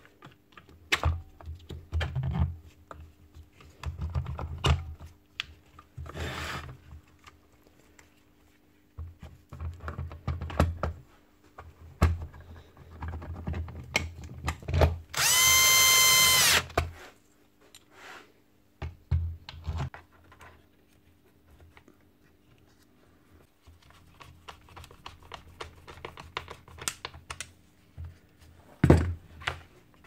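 Plastic and metal parts clunking and clicking as the circular saw is put back together. Midway through, a cordless drill/driver runs for about two seconds with a steady, high-pitched whine, driving a screw into the housing.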